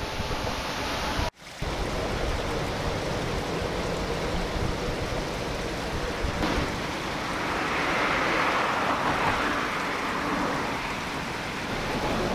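Steady rushing of a shallow river spilling over a low concrete weir. For about the first second, the low rumble and faint whine of a small electric train moving away, cut off abruptly.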